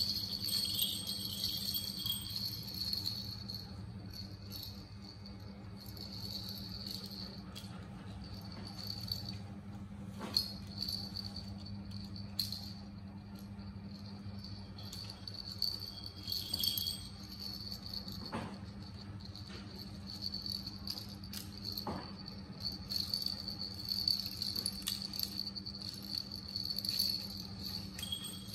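Small bells inside plastic toy balls jingling on and off as a baby monkey handles them, with a few sharp plastic knocks from toys, over a steady low hum.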